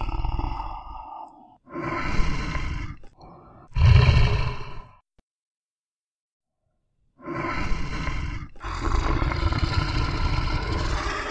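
Bear growling in a few rough bursts, the loudest and deepest about four seconds in. Then a gap of about two seconds of silence, and a longer unbroken growl from about seven seconds on.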